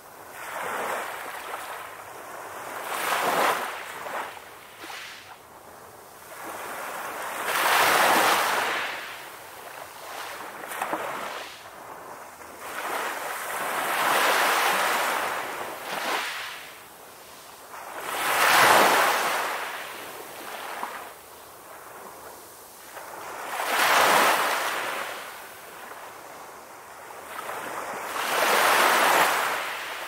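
Ocean surf: waves breaking and washing in, the rush of water swelling and fading about every five seconds, six surges in all.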